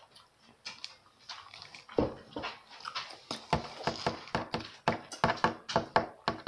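A pet dog making a rapid run of short sounds, starting about two seconds in.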